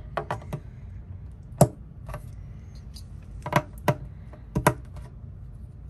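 Plastic thread spool pins being pushed into the plastic thread-stand tray of a Ricoma EM-1010 embroidery machine: scattered sharp clicks and taps in small clusters, the loudest about a second and a half in.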